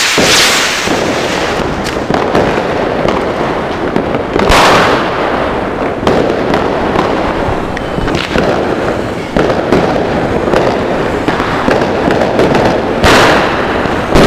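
Dense New Year's fireworks close by: continuous crackling and popping of firecrackers and rockets. Three louder rushing hisses of skyrockets launching stand out, one at the start, one about four and a half seconds in, and one near the end.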